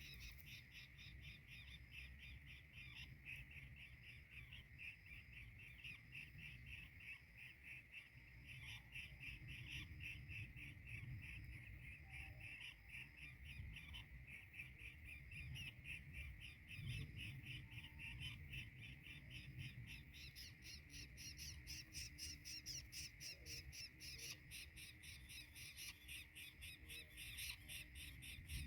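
Faint insect chorus, a steady high, fast-pulsing trill that carries on without a break, over a low rumble.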